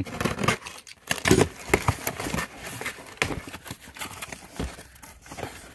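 Utility box cutter slicing the packing tape on a cardboard carton, then the flaps pulled open and the cardboard and packaging inside handled: irregular scrapes, rustles and knocks.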